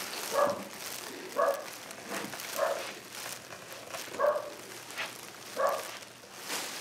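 A dog barking over and over, single barks about a second apart.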